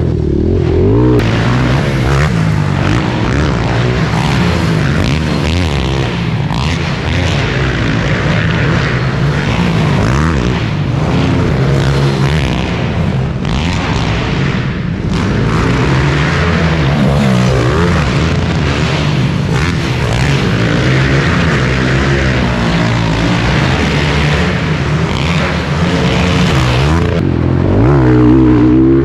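Pit bike engines revving up and down, their pitch rising and falling constantly as the bikes ride the track. A steady rushing noise lies over most of it, coming in about a second in and falling away near the end.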